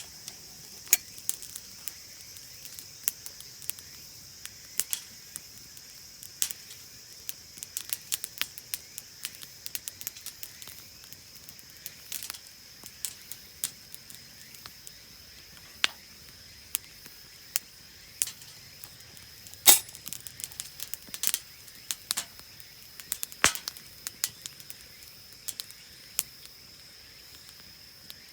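Steady high chirring of insects, with many irregular sharp crackles and clicks on top. The loudest click comes about twenty seconds in.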